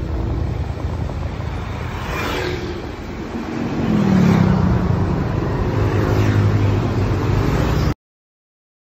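Motor scooter engines and street traffic: a steady rumble, then a scooter passing close about four seconds in, its engine note falling as it goes by. The sound cuts off abruptly near the end.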